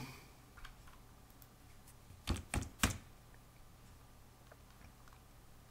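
Three quick keystrokes on a computer keyboard, a little over two seconds in, over a faint steady low hum.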